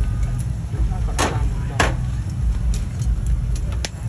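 Busy outdoor street-market ambience: a steady low rumble with faint background chatter, and two sharp clacks, one a little over a second in and one near two seconds.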